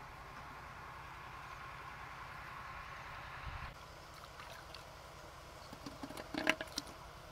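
A faint steady hum with hiss that cuts off about halfway through, then a few light clicks near the end as hands rummage through a clay pot of eggs, the eggshells knocking together.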